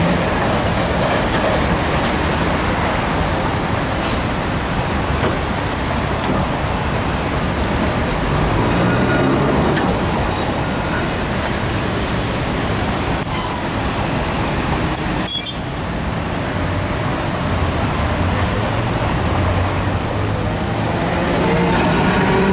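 City street traffic and trams running on the tracks: a continuous rumble of passing vehicles. A thin high squeal lasts about two seconds around the middle. Near the end one of Milan's 1920s Peter Witt-type trams passes close with a rising whine.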